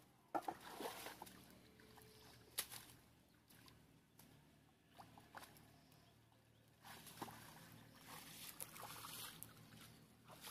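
Faint sloshing and splashing of shallow pond water and wet mud being worked by hand, with a few small knocks; the splashing is busiest in the second half.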